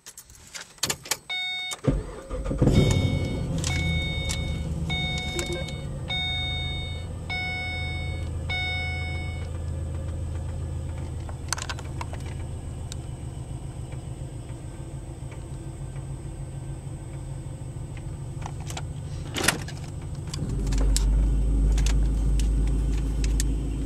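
Pontiac G8 GT's 6.0-litre V8, breathing through long-tube headers and an x-pipe, starts about two seconds in after a few clicks and settles into an idle, with a chime repeating about once a second for several seconds. The low rumble grows heavier about twenty seconds in. The idle is rough at a stop, which the owner cannot yet explain.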